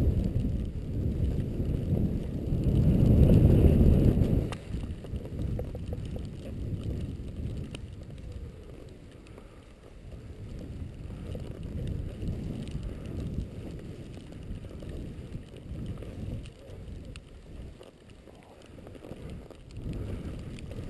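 Wind buffeting the microphone of a camera worn while skiing, along with skis sliding through soft powder snow. The rumble is loud for the first four seconds or so, then drops off suddenly to a softer, uneven rumble that swells and fades.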